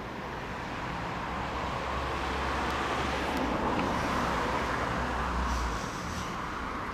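Road traffic noise: a vehicle passing, swelling to its loudest midway and then fading.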